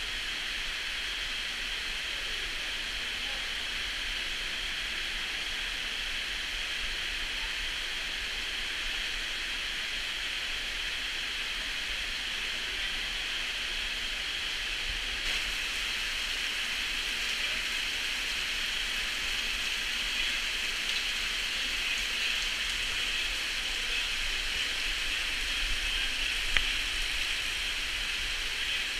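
Steady rush of glacial meltwater running and dripping, growing slightly louder about halfway through, with one sharp click near the end.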